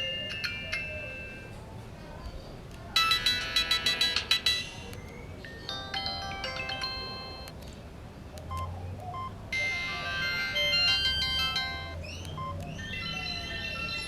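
Ringtones of a Samsung SGH-T509 mobile phone played one after another: short electronic melodies of a second or two each, every one cut off as the next begins.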